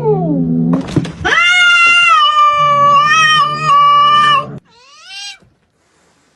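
A cat yowling: a short falling cry, then one long, wavering, drawn-out yowl lasting about three seconds, and a short final cry near the end.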